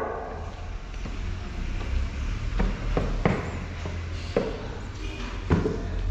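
A handful of short, separate knocks of wooden planks being set in place or tapped, over a steady low rumble.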